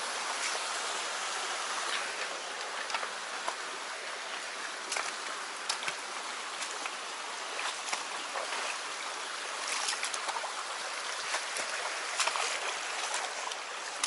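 Small, shallow rocky stream babbling steadily over stones, with scattered short clicks and snaps from footsteps over stones and twigs along the bank.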